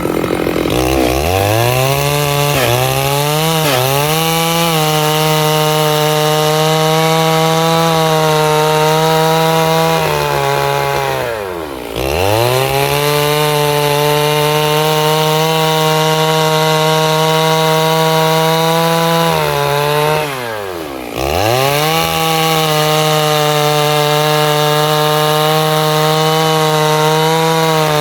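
Stihl MS 651 two-stroke chainsaw cutting wood at full throttle. It revs up from low speed in the first seconds and wavers as the chain bites. Twice, about 11 and 20 seconds in, the engine drops sharply almost to idle and then revs back up to cutting speed.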